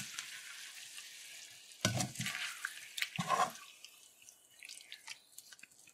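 A metal spoon stirring and scraping sardines and potatoes in a metal pot, with a couple of louder scrapes about two and three seconds in. A faint sizzle of hot oil fades away over the first two seconds.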